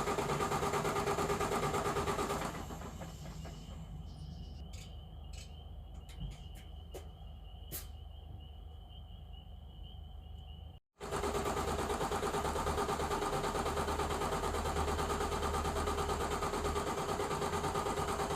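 A 2020 Volvo truck's diesel engine being cranked by its starter, turning over fast without catching, in two long attempts with a quieter gap between them; the truck is losing fuel prime and won't start. In the gap a steady high tone sounds, with a few clicks.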